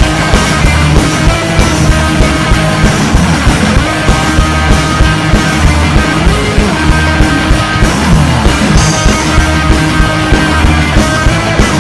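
Live rock band playing loud: electric bass, electric guitar and drum kit driving a steady beat.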